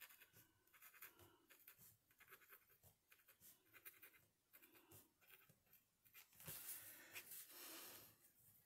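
Faint scratching and tapping of a marker pen's nib drawing short strokes on a paper tag, with a longer, louder stretch of scratching about six to eight seconds in.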